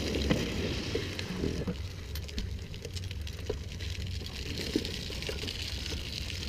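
Steady hiss with a low rumble and scattered small clicks: drift trikes' hard plastic wheels rolling and sliding on asphalt, mixed with wind on the microphone.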